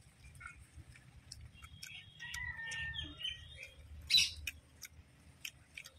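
Birds chirping and calling, with a run of call notes around two to three seconds in and a short, louder harsh squawk about four seconds in.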